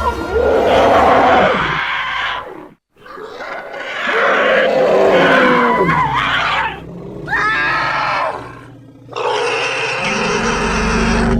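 Creature sound effect built from elephant and mammoth sounds: a string of loud elephant-like roars and trumpet calls whose pitch rises and falls, with short pauses about three seconds in and again near nine seconds. A deep low rumble comes in near the end.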